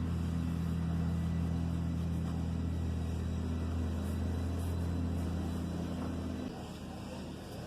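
A steady low mechanical hum, like a motor running, that cuts off suddenly about six and a half seconds in.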